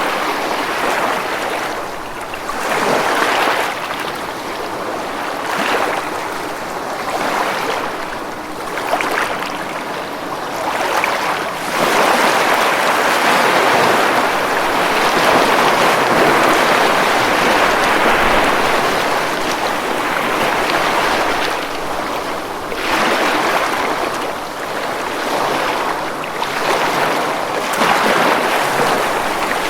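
Ocean waves breaking and washing up a beach, the surf swelling and falling back every few seconds, with a longer, louder surge through the middle.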